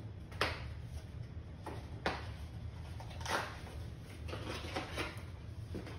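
Handling noise as paddle board accessories, including a coiled leash, are unwrapped: about seven short rustles and clicks, scattered irregularly, over a steady low hum.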